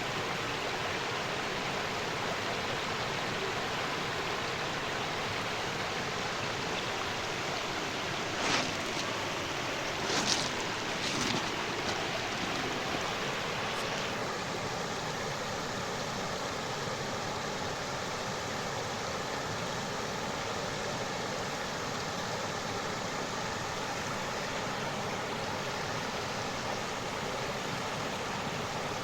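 Stream water flowing steadily over rocks, with a few brief louder splashes about a third of the way in.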